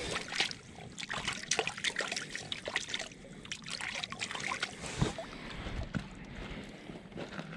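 Shallow lake water splashing and trickling against a rocky, gravelly shore, a run of irregular small splashes and clicks, with one heavier thump about five seconds in.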